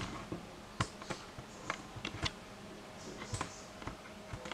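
About a dozen light, irregular clicks and taps of plastic wargame pieces and a measuring ruler being handled on a tabletop.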